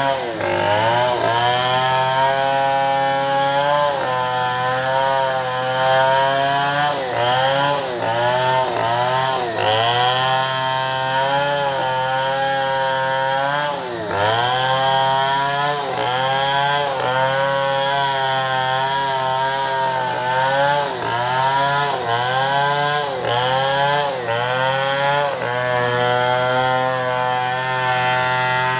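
Chainsaw cutting through wood. The engine bogs down under load and revs back up again and again, its pitch dipping and recovering every second or two.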